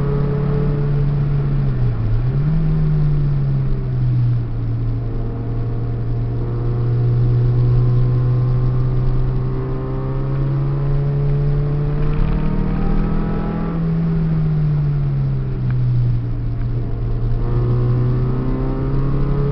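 Peugeot 306 engine heard from inside the cabin while driven on a circuit, holding a steady note that dips briefly about two seconds in, climbs about twelve seconds in, falls back, and rises again near the end as the throttle and gears change, over steady road noise.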